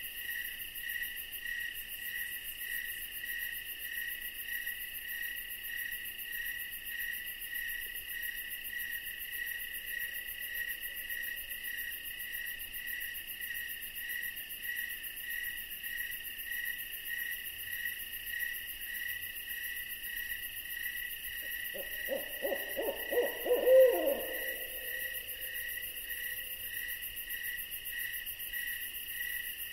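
Steady chorus of crickets and insects with a pulsing chirp, and about 22 seconds in a single quavering owl hoot, the loudest sound, that trails off in a held tone.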